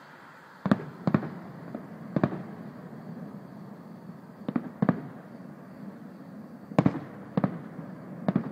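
Distant aerial fireworks shells bursting: about eight sharp bangs at irregular intervals, some in quick pairs, each trailing off in an echo.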